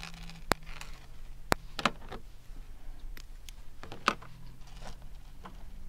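Scattered sharp clicks and light taps of fishing tackle being handled over a hard plastic lid while a rig is knotted: fluorocarbon line, a split-shot lead and a pair of scissors picked up about four seconds in. A faint low steady hum lies underneath.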